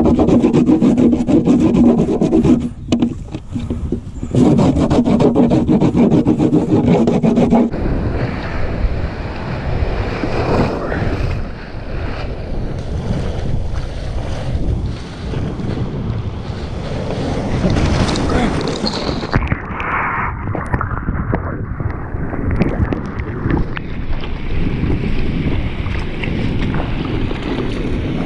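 A bar of surf wax rubbed in quick strokes over a surfboard's deck. About eight seconds in it gives way to water rushing and splashing around the board as it moves through whitewater, with wind on the microphone.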